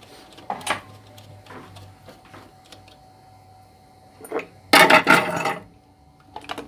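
Metal tools and pump parts being handled: a few light clicks and knocks, then a loud clatter lasting about a second near the end.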